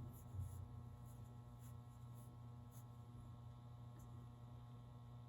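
Near silence over a steady faint electrical hum, with a few faint soft ticks and rustles from a crochet hook and yarn being worked.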